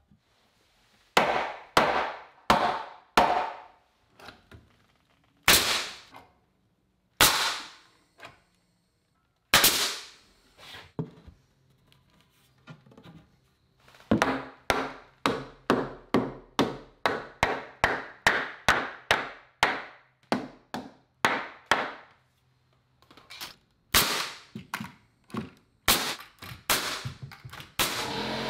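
Nails being driven into wooden wall studs and a sill plate by a pneumatic framing nailer and a hammer: spaced single sharp shots, and about halfway through a quick run of blows, about two a second, lasting some eight seconds.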